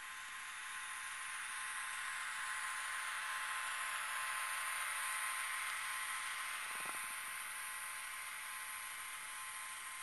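HO-scale Con-Cor PCC streetcar model, fitted with a freshly installed Digitrax sound/motor decoder, running along the track: a steady hissing whir with a faint high hum, growing louder as it passes close and easing off again.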